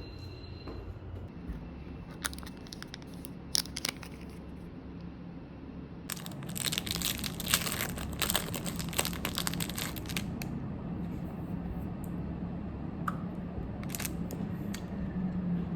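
Crinkling and rustling of something being handled, with scattered crackles and a dense run of crackling from about six to ten seconds in, over a low steady hum.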